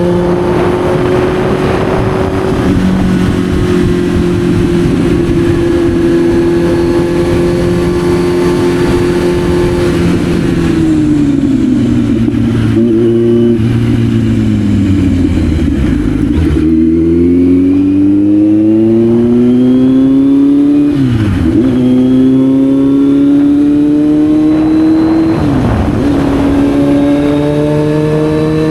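Kawasaki Z900's inline-four engine under way. It holds a steady note at first, then falls in pitch as the bike slows. It then climbs again under acceleration, with two quick drops in pitch at the gear changes.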